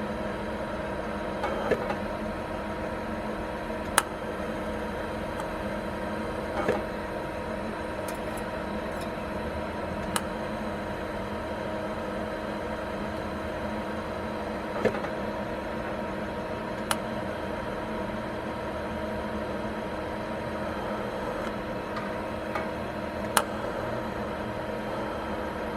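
A steady machine hum with several constant tones, broken by a few short sharp clicks spaced several seconds apart.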